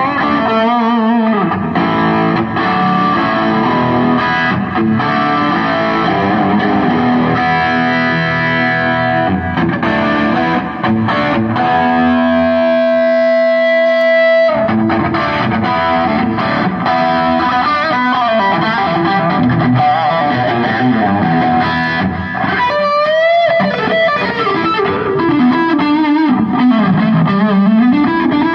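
Electric guitar played through distortion and effects pedals, lead lines of sustained notes and pitch bends. A long held note about halfway through cuts off suddenly.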